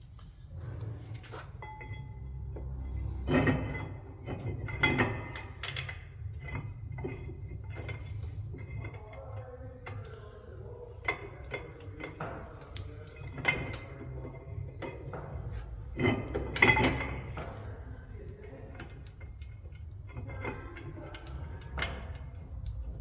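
Metal brake parts and tools clinking and knocking against each other, some with a short ring, as rear disc brake hardware is fitted at the axle, over a steady low hum.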